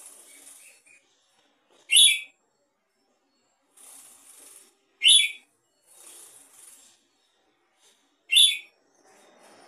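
Red-whiskered bulbul giving a short, sharp, high call three times, about three seconds apart, with softer rustling in between.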